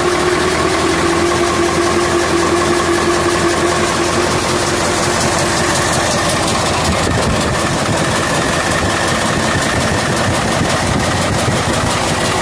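Freshly overhauled Mitsubishi Fuso 8DC9 twin-turbo V8 diesel engine running steadily.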